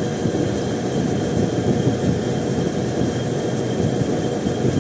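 BlueStar ductable air conditioner's outdoor unit running steadily, compressor and condenser fan together, while it is being charged with R22 refrigerant.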